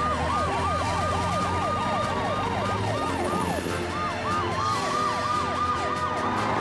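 Emergency-vehicle sirens of a cartoon police car, ambulance and fire truck wailing together. Several overlapping sirens sweep up and down about three times a second, with a short break a little past halfway.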